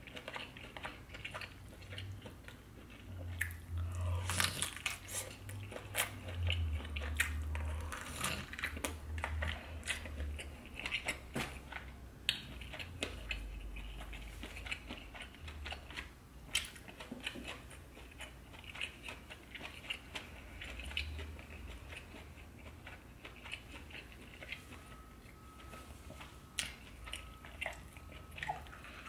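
A person biting and chewing seafood boil food close to the microphone, with many sharp mouth clicks throughout.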